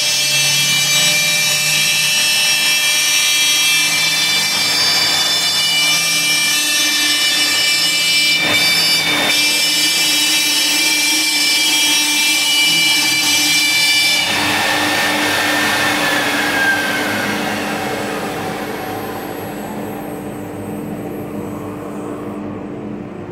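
Laguna CNC router spindle whining steadily as it cuts 1/2-inch plywood, then shutting off about fourteen seconds in and winding down in a falling whine. A steady lower hum from the dust collector carries on underneath.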